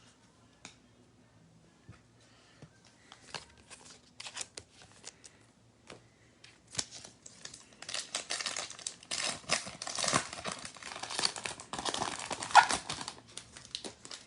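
A trading card pack's wrapper being torn open and crinkled: scattered light ticks at first, then dense crinkling and tearing through the second half.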